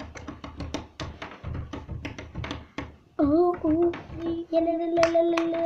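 A quick run of taps and knocks for about three seconds, then a child's voice sings one long held note, wavering briefly at its start.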